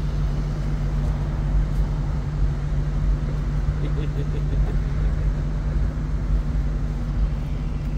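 Vehicle engine running with a steady low hum.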